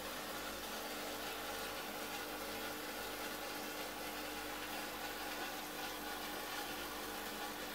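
Small aquarium's filter pump and air pump running with a steady hum over an even hiss of bubbling water.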